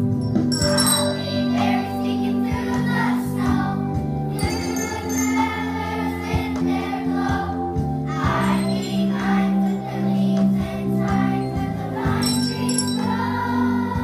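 Children's choir singing with instrumental accompaniment, the children shaking jingle bells and striking triangles, with bursts of jingling about half a second in and again near the end.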